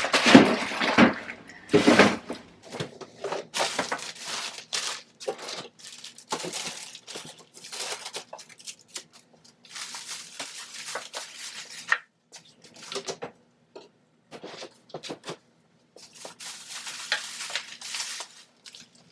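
Food containers and packages being handled and set down: irregular clatters, knocks and plastic rustling, with a short lull about two-thirds of the way through.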